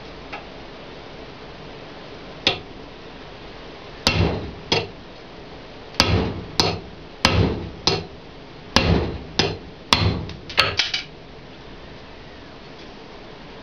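Hand hammer striking metal on a steel-topped workbench: about a dozen sharp blows, mostly in pairs, each with a short metallic ring, the last few coming quickly together. The blows belong to an edge-resistance test of a handmade vanadium-steel knife blade.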